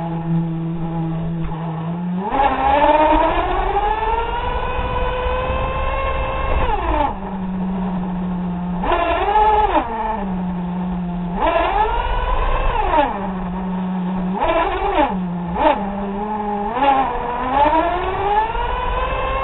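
Small nitro RC car engine buzzing at a steady idle, then revving up and falling back about six times. The first and last revs are long and climb steadily in pitch, and the ones between are short blips. While the car runs there is a low rumble from the tyres on the concrete.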